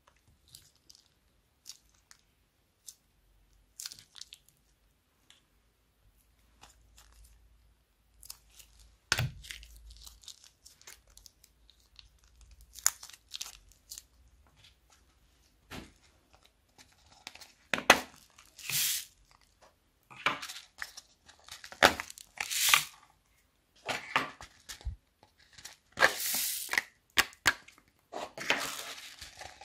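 Small plastic zip-lock bags crinkling and being snipped open with scissors, with faint clicks at first. About halfway through, louder rustling bursts begin and grow more frequent as bags of foam beads are shaken out into a plastic bowl.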